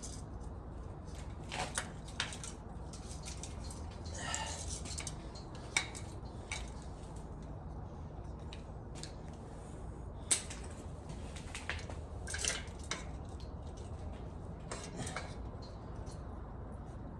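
Scattered sharp clicks and clinks of small hard objects being handled, about a dozen spread irregularly, over a steady low hum.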